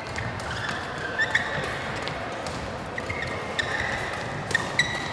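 Badminton rackets striking a shuttlecock in a fast doubles drill: a run of sharp, irregular hits, some in quick pairs.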